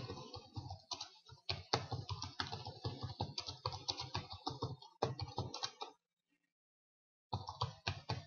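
Typing on a computer keyboard: a fast, uneven run of key clicks that stops about six seconds in and starts again for the last second.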